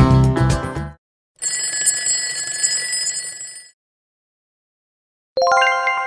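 Background music stops about a second in. A ringing bell sound effect follows for about two seconds, marking the end of the countdown. After a pause, a bright chime strikes near the end and rings on as the answer is revealed.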